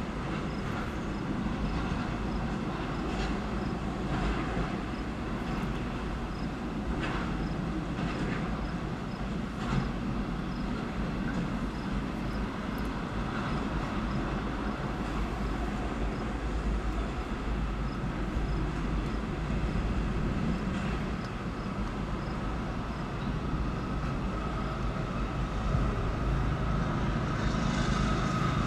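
A freight train of multilevel autorack cars rolling over a railway bridge: a steady rumble of steel wheels on rail with a few sharp clanks. Near the end the sound grows louder and a steady high whine comes in as the mid-train locomotive draws near.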